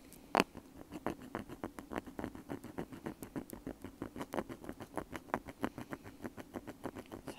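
Bamboo ear pick scratching at a wired earbud in close-up, a quick run of dry, scraping strokes, about five a second, with one louder click just after the start.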